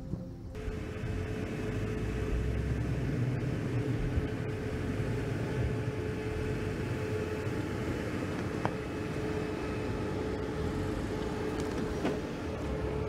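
Pickup truck engine running steady and low as the truck rolls slowly over a log on a dirt trail, starting about half a second in, with a couple of short clicks later on.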